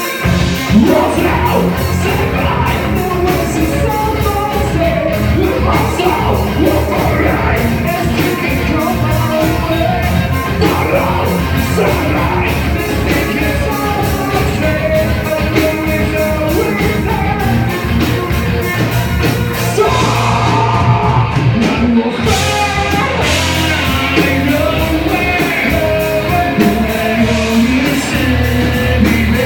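Live band playing a song with a lead singer, loud and continuous, the vocals partly shouted.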